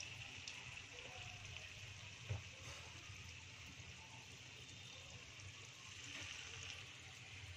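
Gulgule, balls of sweet jaggery and wheat-flour batter, deep-frying in hot oil in a kadhai: a faint, steady sizzle and bubbling. A single light knock about two seconds in.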